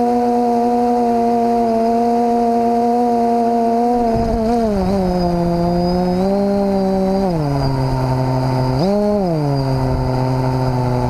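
Quadcopter's brushless motors and propellers droning at a steady pitch, which drops in steps from about four seconds in as it sets down on the grass under GPS return-to-home. Near the nine-second mark the pitch rises briefly, then settles at a low idle.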